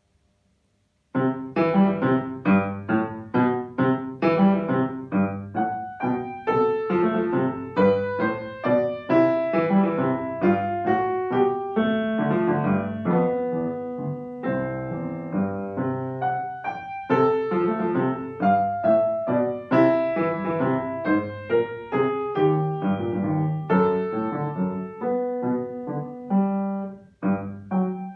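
Grand piano played solo: a classical piece in quick, even notes, starting about a second in, with a brief drop in level near the end before the playing carries on.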